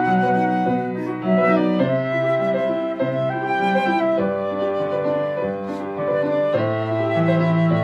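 Concert flute playing a flowing melody of held notes over piano accompaniment.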